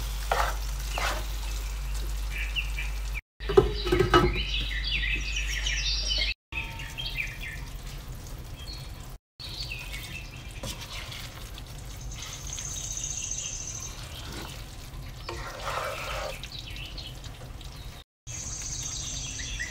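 Okra and yoghurt masala sizzling gently in a non-stick wok while a spatula stirs and scrapes it, with clicks of the spatula against the pan. Birds chirp faintly in the background, most clearly as a high trill near the middle and again at the end, and the sound cuts out briefly four times.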